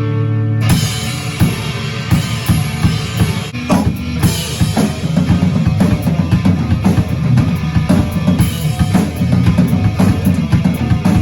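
Rock band music: a held chord rings briefly, then under a second in a full drum kit comes in with a steady, driving beat of bass drum and snare under the rest of the band.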